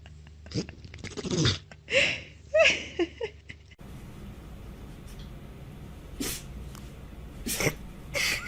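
Pets sneezing: a run of short sneezes and snorts, then, after a cut, three sharp sneezes in the last few seconds.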